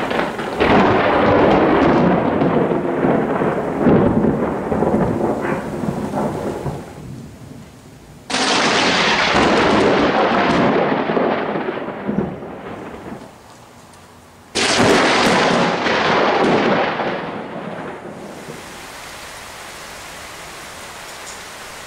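Thunder from close lightning strikes: three times a sudden crack breaks out and rolls into a rumble that dies away over several seconds, the third fading to a steady hiss near the end.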